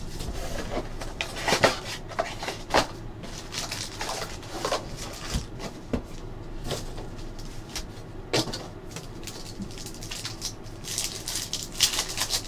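Trading card box being opened and handled: scattered cardboard knocks, scrapes and taps as packs are lifted out. Near the end, a foil card pack crinkles as it is torn open.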